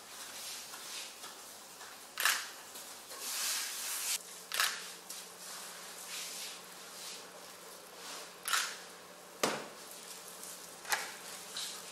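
Handling noises from hair dye being brushed on with a tint brush by gloved hands: a handful of sharp clicks scattered through, with soft rustling between them.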